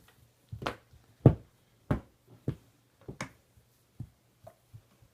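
Irregular knocks and thumps, about ten in five seconds with the loudest about a second in, from a German Shepherd puppy playing tug with a toy, over a faint steady low hum.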